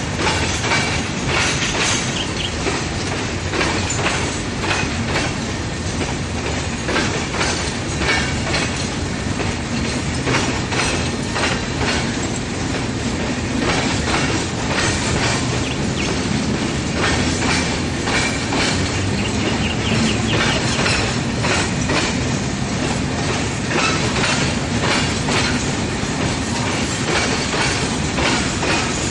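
Freight train rolling past, its wheels clattering steadily over the rail joints.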